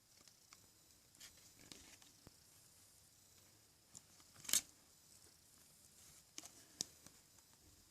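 Faint handling noises of toy packaging: a few light clicks and rustles, with one sharper click about four and a half seconds in.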